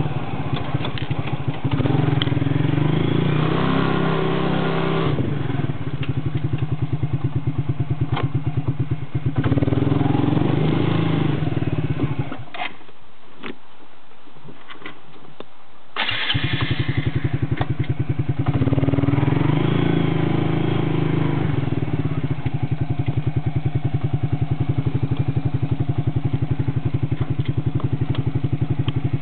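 1991 Suzuki Quad Runner 300 4WD ATV's single-cylinder four-stroke engine running and revving up through several pulls. About twelve seconds in, the engine sound cuts out for three to four seconds with a few clicks, then the engine starts again and runs with a steady, even beat.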